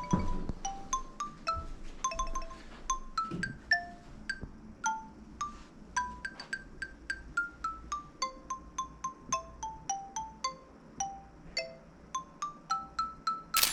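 Background music: a light melody of short, bell-like struck notes, several a second, over a faint low rumble, with a brief click at the very end.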